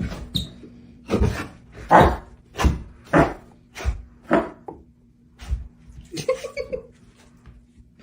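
A dog making a run of short, noisy huffs, about one every two-thirds of a second, with a brief wavering whine near the end.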